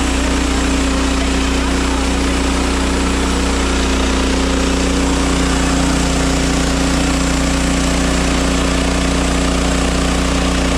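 Sawmill's engine running steadily at an even speed, a constant low drone.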